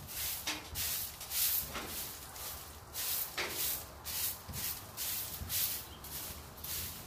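Broom sweeping a dirt and mulch floor, a hissing scrape with each stroke at about two strokes a second.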